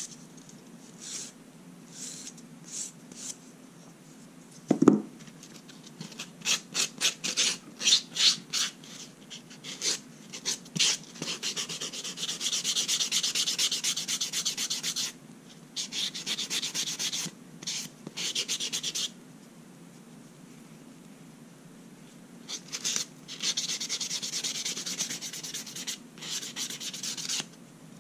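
Nail file rasping across fingernails: first a run of short separate strokes, then longer continuous spells of filing broken by brief pauses. A single sharp knock about five seconds in.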